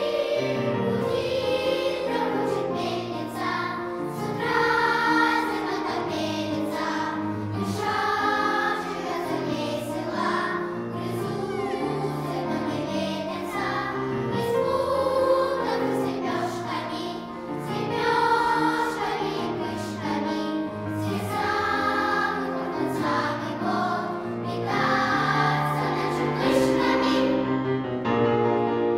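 Children's choir singing with piano accompaniment.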